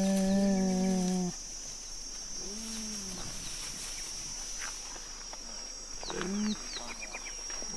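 Cheetah calls: a long, steady, moaning call ends about a second in, a softer short call follows around two and a half seconds, and a brief call comes near six seconds with a few quick high chirps. A steady high-pitched tone runs underneath.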